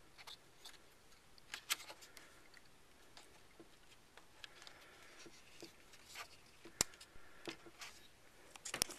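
Hands plugging an adapter cable into a wireless remote control unit and handling the small plastic gear: scattered light clicks and rubbing, with a sharper click a little under two seconds in, another about seven seconds in, and a cluster of clicks near the end.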